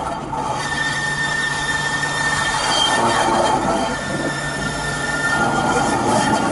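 Lyon T3 tram running on its rails: a steady rumble with several steady high squealing tones over it, getting louder over the first few seconds.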